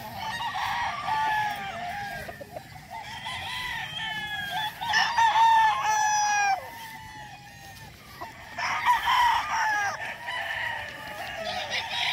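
Several gamefowl roosters crowing over one another in waves, the loudest bursts about five seconds in and again near nine seconds.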